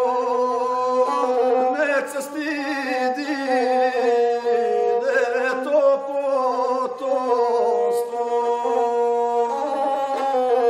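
A gusle, the single-string bowed folk fiddle, playing a wavering, nasal line under a man's voice singing a traditional South Slavic epic song in long, ornamented phrases.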